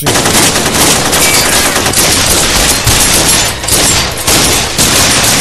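Heavy, continuous gunfire: many shots from several guns overlapping with no pause.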